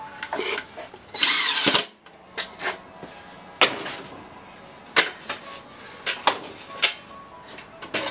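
A brief whir of a power drill, lasting under a second, about a second in. It is followed by a string of sharp wooden knocks and clunks as the plywood pieces are handled on the bench.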